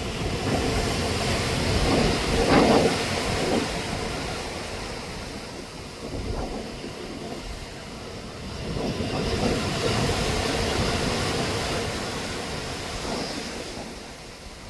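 Rushing noise of wind and sea waves heard from a cruise ship's open deck, swelling loudly near the start and again in the second half.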